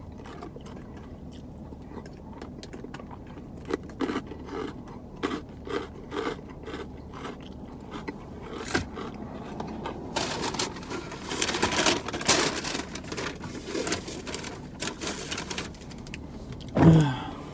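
Eating salad: a fork clicking and scraping in a plastic salad container, with crunchy chewing. About ten seconds in it turns into denser crinkling and rustling, and near the end a paper bag rustles.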